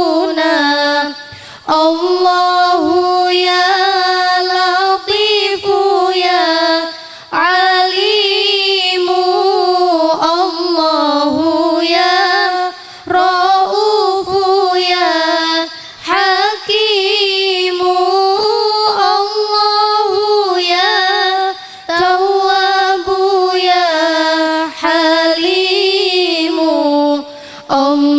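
A woman's voice singing an Arabic devotional song solo, in long, ornamented phrases with short breaths between them.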